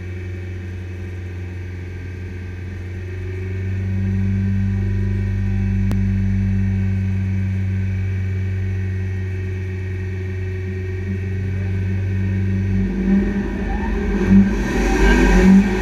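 BMW Compact Cup race car's engine heard from inside the cabin, held at steady raised revs on the starting grid, getting a little louder about four seconds in. About thirteen seconds in the steady note breaks up and climbs in pitch as the car launches off the line with the engine revving hard.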